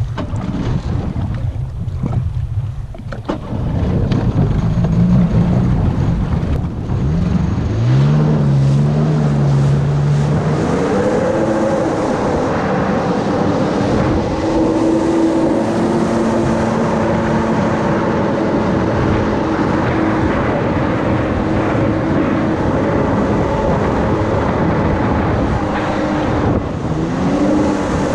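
2002 Sea-Doo GTI's two-stroke engine pulling away: it rises in pitch in two stages over the first dozen seconds, then runs steadily at speed, with a short drop and rise in revs near the end.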